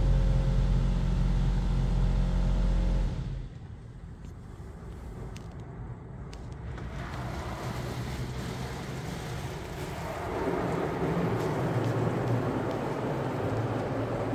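Automatic car wash spraying water over the car, heard from inside the cabin as a loud steady rumble that cuts off abruptly about three seconds in. After a few quieter seconds, a rushing noise from the wash builds up again and grows louder about ten seconds in.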